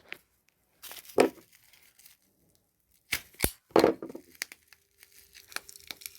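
Hard plastic packaging of battery terminals being torn and crinkled open by hand, in a few separate bursts of crackling, with one sharp crack about three and a half seconds in.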